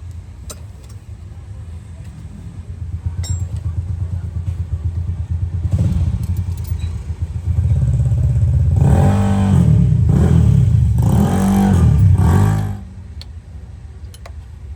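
A motor vehicle engine running, growing louder over several seconds and loudest with shifting pitch for about five seconds past the middle, then dropping off suddenly near the end to a low rumble.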